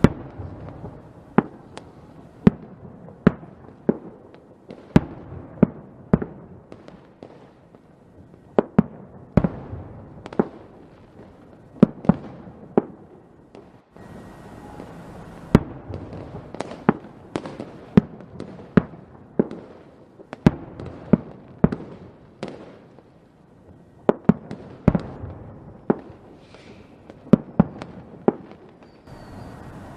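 Fireworks going off in a continuous barrage: sharp bangs at irregular intervals, about one or two a second, over a steady rumble and crackle, with a brief lull about halfway through.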